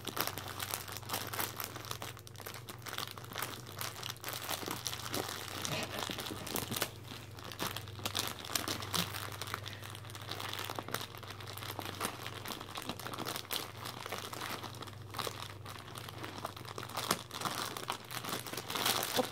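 Snack chip bag crinkling and crackling continuously as a Norwegian Elkhound licks for crumbs deep inside it, its tongue and muzzle working against the bag.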